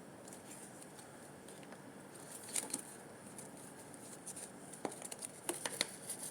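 Soft squishy toys being handled and squeezed in the hands: faint rubbing, then small sharp clicks and sticky crackles from about halfway on, several in quick succession near the end.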